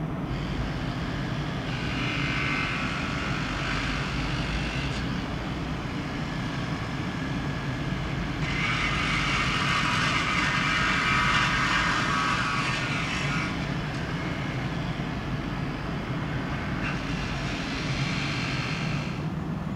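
ÖBB Railjet Xpress electric train at a station: a steady low hum, with a patch of hiss about two seconds in, a louder hiss swelling in about halfway through and fading a few seconds later, and another shorter patch near the end.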